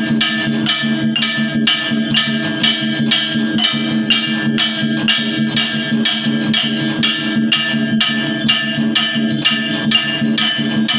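Temple aarti accompaniment: sharp, evenly spaced metallic strokes, about three a second, over a steady low drone.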